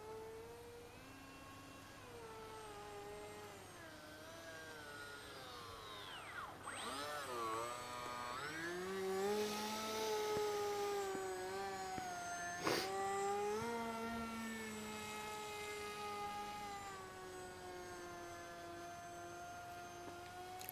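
Bixler model plane's electric motor and APC 6x4 pusher propeller whining, its pitch rising and falling with the throttle. The pitch drops sharply about six seconds in, then climbs back and is loudest around ten seconds. There is one sharp click just before thirteen seconds.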